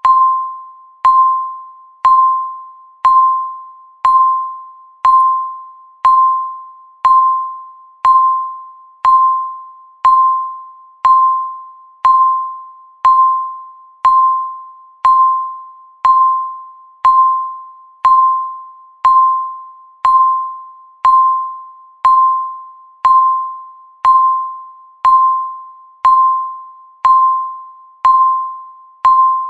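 Countdown timer's electronic beep marking each second: one short pitched tone once a second that starts sharply and fades away before the next.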